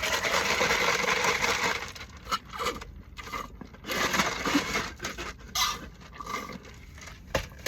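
Rustling and scraping close to the microphone, loudest for the first two seconds, then scattered clicks and shorter rustles.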